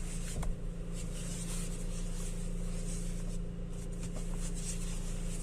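BMW X1 engine idling with a steady hum, and no knock or noise from the steering rack, which has just been repaired and refitted.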